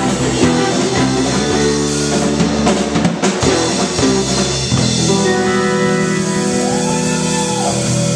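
Live rock band, with electric bass, guitar and drum kit, playing loud and fast. About five seconds in, the busy playing gives way to long held notes ringing on, with a tone gliding up and back down near the end.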